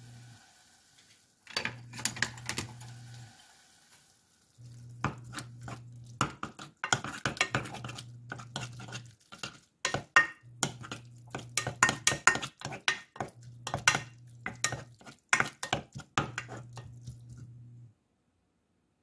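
Wooden spoon stirring instant jjajang noodles and their sauce in a nonstick pot, with many quick clacks and scrapes against the pot and a light sizzle. A low steady hum runs underneath and drops out several times.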